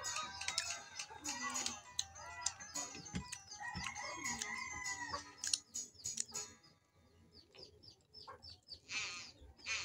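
Chickens clucking and a rooster crowing about four seconds in. The calls die down after about six and a half seconds.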